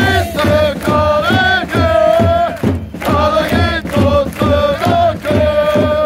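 Football supporters singing a chant together, held sung notes over a steady drum beat.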